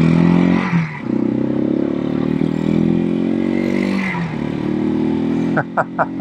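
Janus Halcyon 250's single-cylinder four-stroke engine accelerating through the gears under the rider. Its pitch climbs and drops back at an upshift about a second in, climbs again, and drops at another upshift about four seconds in. Near the end comes a quick run of short, high pulses, about six a second.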